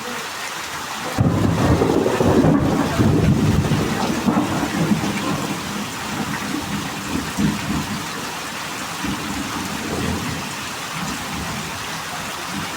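Heavy rain pouring steadily, with a low rumble of thunder that starts about a second in and fades over the next few seconds.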